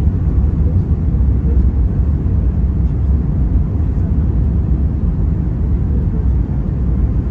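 Steady low rumble of cabin noise inside an Airbus A321neo airliner, even and unchanging.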